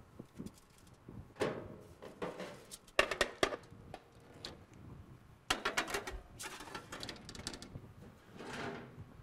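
Metal clanks and rattles of an oven rack and a sheet tray being slid into a home oven, with the oven door knocking. The clanks are separate, with a quick run of clicks about three seconds in and a longer clatter past the middle.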